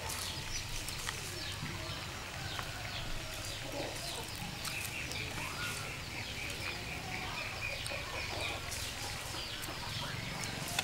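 Chickens clucking in the background, with many short, high, falling chirps repeating throughout.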